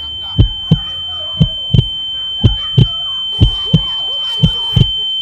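A heartbeat sound effect, a low double thump about once a second, over a steady high-pitched ringing tone.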